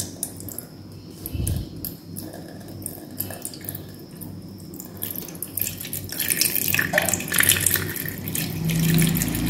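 Milk poured in a thin stream from a steel vessel into a steel pot, splashing into the milk already in it; the pouring grows louder about halfway through.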